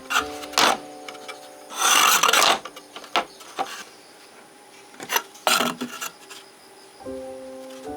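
Rough scraping strokes, like filing or sanding, with one longer, louder stroke about two seconds in, over faint steady background tones.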